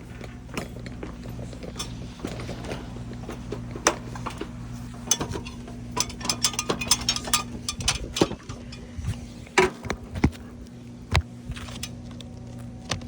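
Roof shingles being handled and worked with tools: scattered clicks, taps and crackling scrapes, busiest in the middle, over a steady low hum. The shingles are tearing as they are lifted.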